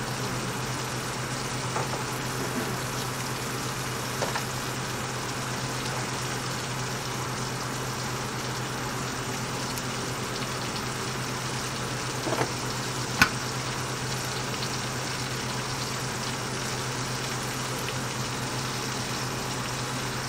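Chuck roast searing in a hot cast-iron skillet, a steady sizzle over a constant low hum. A few light clicks, the sharpest about 13 seconds in.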